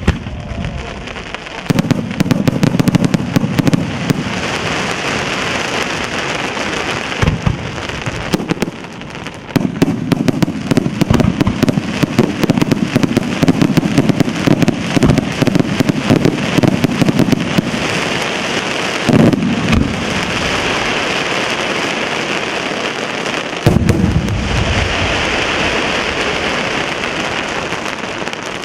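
Daytime fireworks battery in the San Severo style: a dense, unbroken crackle of many small aerial bursts and firecrackers. Waves of heavier booming swell in and fade out, starting about 2, 10, 19 and 24 seconds in.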